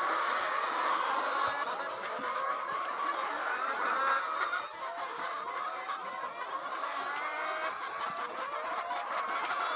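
A large flock of laying hens clucking and calling together: many short overlapping calls forming a steady, dense chorus.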